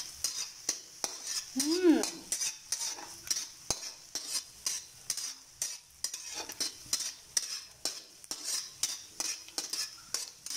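Metal spatula scraping and stirring garlic and onion sautéing in hot oil in a metal wok: quick repeated scrapes, about three a second, over a steady sizzle.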